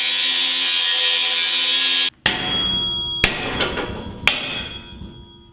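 Cordless angle grinder with a thin cutoff wheel slicing through steel angle iron, a steady whine that cuts off suddenly about two seconds in. Then three sharp metal strikes about a second apart, each leaving the steel ringing.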